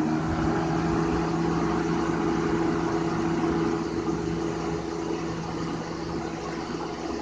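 Comfort Edge 20-inch box fan running on its high setting: a steady motor hum under the rush of air from the blades.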